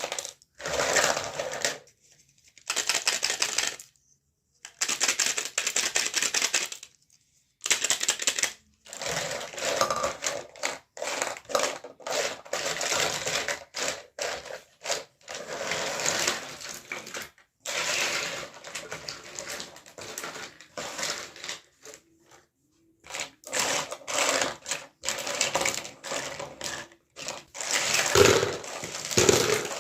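Close-up handling of a toy makeup set and its packaging: bursts of rapid clicking and rattling, broken by several short silent gaps.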